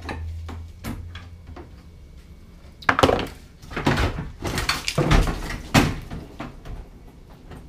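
A car radiator, crushed in by its fan, being worked loose and pulled up out of the engine bay: a few light clicks, then a loud run of scraping and knocking from about three to six seconds in as it drags against the surrounding parts.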